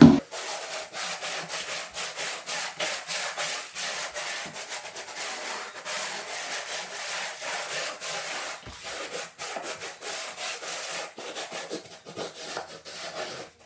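Wooden float rubbed back and forth in quick repeated strokes over an uncoupling membrane, pressing the membrane down into the mortar bed beneath it.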